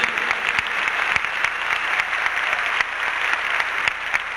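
Audience applauding in an arena, many hands clapping at once, easing off slightly near the end.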